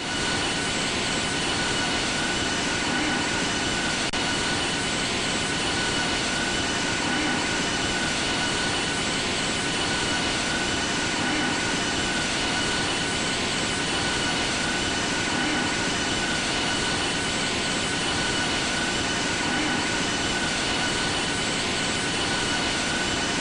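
Boeing 787-8 airliner's jet engines and airflow heard from inside the cabin: a steady, even noise with a faint high whine.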